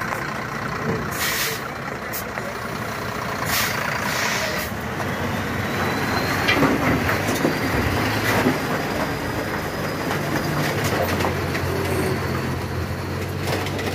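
Diesel engine of a Mercedes-Benz truck running as it creeps past at low speed. Its air brakes hiss briefly about a second in and again around four seconds in.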